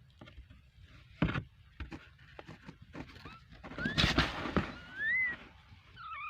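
Newborn kittens mewing: a few thin, high, short squeaking cries in the second half, amid rustling and a sharp knock about a second in.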